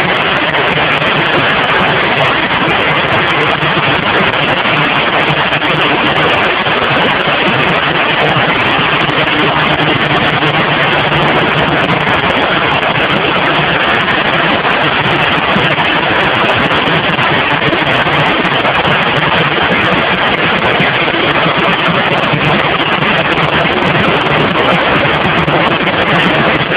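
Wood-screw slotting machine running steadily as it slots the points of wood screws: a loud, continuous mechanical noise with a low hum underneath.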